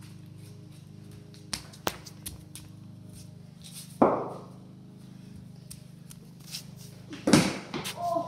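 A cricket ball knocking once, sharp and loud with a brief ringing tail, about halfway through, over a steady low hum. Near the end comes a louder cluster of knocks and scuffs, and a voice begins.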